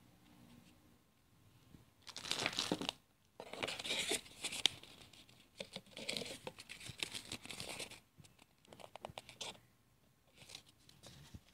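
Cardboard and paper packaging rustling and crinkling as it is handled in a box. The sound comes in several irregular bursts, busiest in the middle seconds, then thins to quick small crackles near the end.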